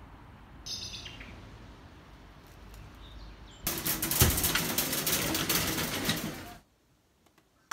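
Faint outdoor background noise with a brief high chirp about a second in. Then a loud crinkling rustle of woven plastic shopping bags in a shopping trolley runs for about three seconds and cuts off suddenly.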